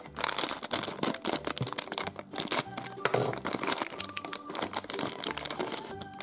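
Thin plastic toy wrapper crinkling and tearing as it is pulled open by hand, a dense run of quick crackles.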